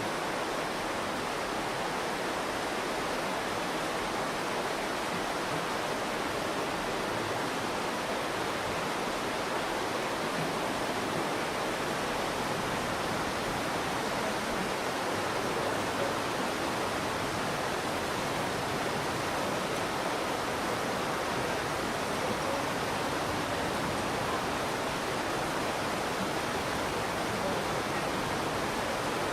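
Steady rush of the Virgin River's flowing water, an even, unbroken sound.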